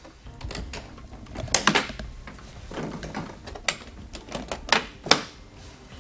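Large hard plastic rugged transport cases being handled: a series of sharp clicks and knocks as the case latches are worked and the plastic shells bump together.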